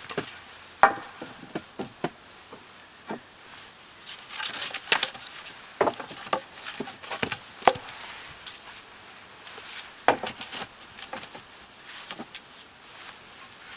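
Wooden poles and branches knocking and clattering against each other as they are handled and fitted into a shelter frame, with irregular sharp knocks and some rustling.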